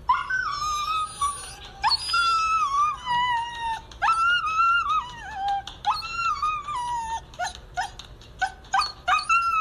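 Husky whining in long, falling howl-like cries about every two seconds, then a run of short yips near the end.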